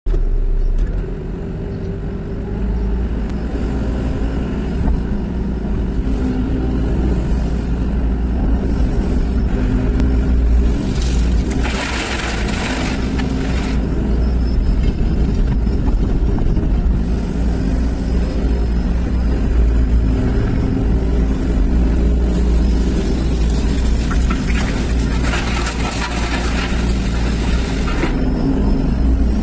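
SANY SY215C excavator's diesel engine running steadily under working load, heard from inside the cab. Twice, about eleven seconds in and again around twenty-five seconds, a rushing clatter of stone pouring from the bucket into a dump truck's bed.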